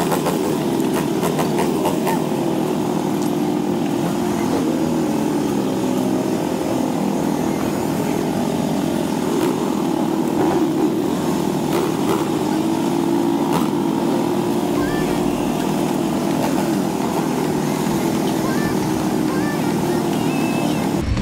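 ATV engine running while riding a bumpy dirt trail, its note rising and falling with the throttle. Occasional knocks and rattles come from the bumps.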